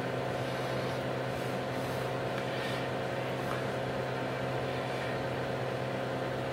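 Steady low electrical hum with a string of overtones, from mains-powered bench equipment.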